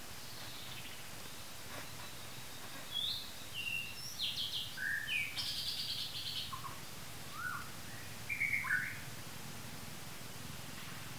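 Birds calling: a run of short chirps and whistled notes, some sliding up or down in pitch, from about three seconds in until nearly nine seconds, over a steady background hiss.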